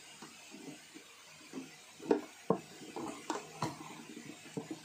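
Handling clicks and knocks as a welding-pen cable's lug and connector are fitted onto the terminals of a spot welder. There is a cluster of sharp taps about two to four seconds in, over a faint steady hum.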